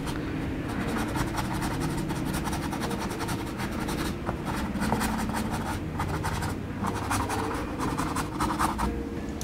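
Bristles of a small flat paintbrush scrubbing and dabbing acrylic paint onto canvas in many quick short strokes, over a steady low background hum.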